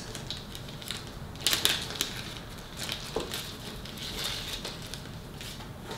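Crinkly packaging being handled and opened, with scattered crackles and a louder burst of crinkling about a second and a half in.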